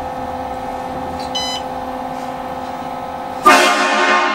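A steady mechanical hum with a short high beep about a second and a half in, then a sudden, very loud horn blast with many tones at once about three and a half seconds in.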